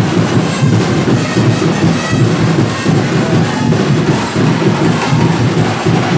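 Loud live festival music led by drums and percussion, playing without a break.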